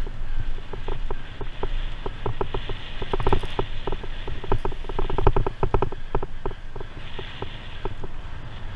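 Cyclocross bike rattling over bumpy dirt and grass: rapid clicks and clatters from the bike, in two dense bursts a few seconds in and past the middle, over a steady rumble of tyres and wind on the microphone.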